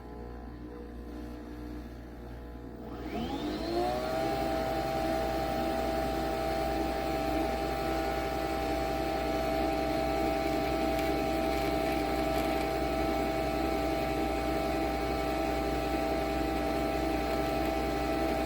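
Nespresso Vertuo Pop+ coffee machine brewing: its motor spins up with a rising whine about three seconds in, then holds a steady whir as it spins the capsule.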